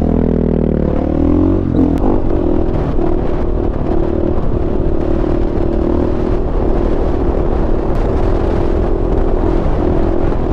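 Dirt bike engine pulling hard from low speed, its revs rising and dipping once at a gear change, then held at steady revs through a long wheelie.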